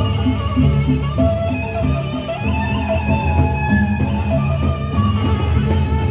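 Gendang beleq ensemble playing a processional piece: big Sasak barrel drums keep a pulsing beat under a sustained bamboo flute melody.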